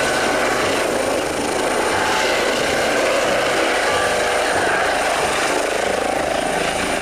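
Eurocopter EC135 air ambulance helicopter hovering low, its turbine engines and rotors running with a steady, loud rush and a high whine. The sound cuts off suddenly at the end.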